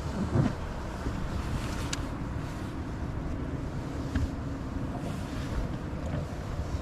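Steady wind noise on the microphone with water sounds, heard on a fishing boat out on the lake.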